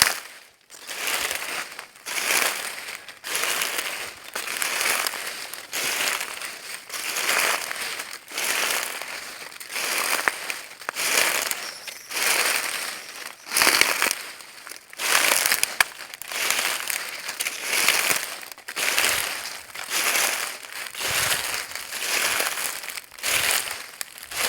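Footsteps crunching through dry leaves at a steady walking pace, about one step a second, each step a crackling crush of leaves underfoot.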